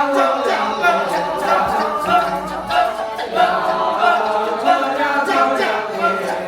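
A group of voices singing together without instruments, like a choir.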